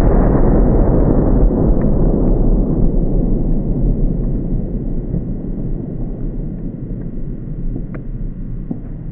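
Loud low noise left by the blast of a pipe bomb packed with over 200 sparklers, fading slowly, with a few faint ticks.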